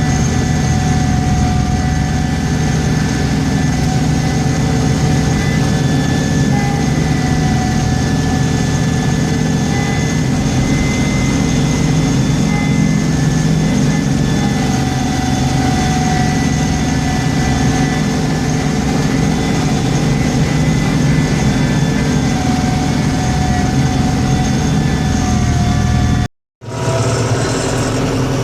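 Engine of a snow-plowing vehicle running steadily at an even speed. Near the end the sound cuts out for a split second and a similar engine sound resumes.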